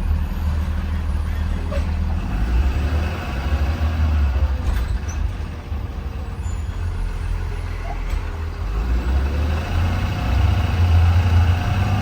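2020 Blue Bird Vision school bus running on the road, heard from up front: a steady low engine rumble with road noise that eases about halfway through and builds again near the end.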